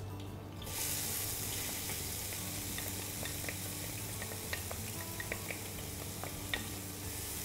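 Diced onion frying in hot oil: a steady sizzle that starts suddenly a little under a second in, with scattered pops and crackles.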